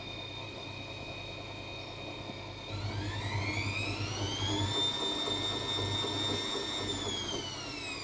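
Whirlpool washing machine on a spin cycle: a steady motor whine and low hum, then the drum motor's whine rises in pitch about three seconds in, holds steady, and falls away near the end as the drum speeds up and slows again.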